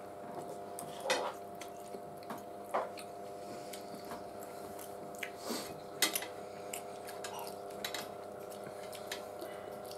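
Two people eating spaghetti: forks and knives clicking and scraping on plates, with chewing, over a steady low hum.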